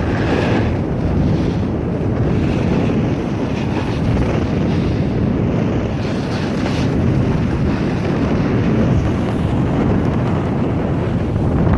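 Wind buffeting the microphone of a camera carried by a moving skier, a loud steady rush, with the hiss of skis sliding on snow coming and going.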